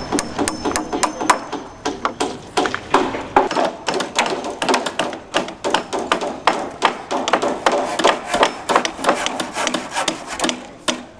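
Hammers driving nails into timber framing: rapid, irregular strikes, several a second and often overlapping.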